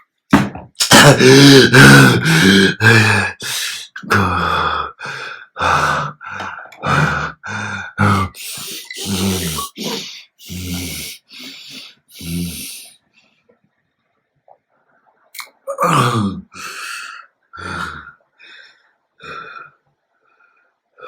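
A man's voice in a string of short, loud utterances that the recogniser did not take for words, pausing for about two seconds midway before carrying on more quietly.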